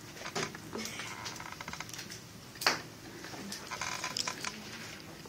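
Scattered clicks, taps and knocks of objects handled on a desk, with a brief fast run of ticks about a second in and one sharp, louder click about two and a half seconds in.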